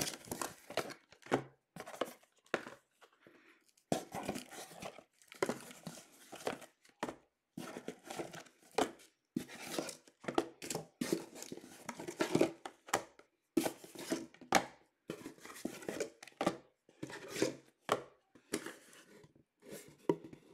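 Cardboard case and hockey card boxes being handled: boxes slid out of the case and set down in a stack, with irregular rustling, scraping and light knocks.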